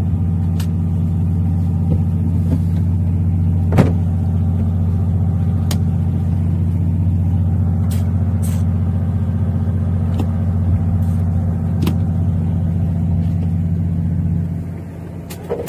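A fishing boat's diesel engine drones steadily at a constant speed, with a few sharp knocks from handling gear on deck. The drone drops in level near the end.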